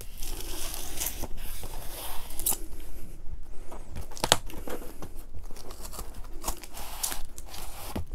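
A corrugated cardboard LP mailer being opened by hand: cardboard flaps tearing loose, rustling and scraping, with several sharp snaps, the loudest about four seconds in, as vinyl records are slid out.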